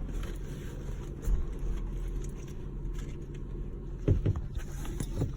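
Stopped car idling, heard from inside the cabin as a steady low rumble, with a single thump about a second in.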